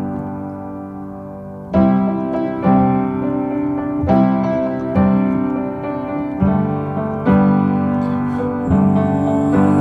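Background music: a piano playing chords, a new chord struck about every second, with no singing.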